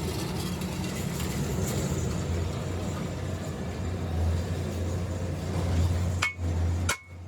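A machine running with a steady low hum and a noisy rattle, then three sharp metallic clinks near the end as the hum cuts off.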